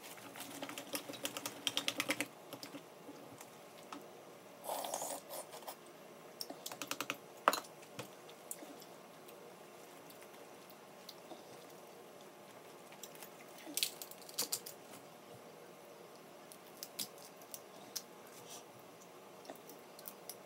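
Snow crab shells cracking and a plastic seafood-boil bag crinkling as the crab is broken apart by hand: scattered bursts of small clicks and crackles with quiet gaps, the loudest a single sharp snap about seven and a half seconds in.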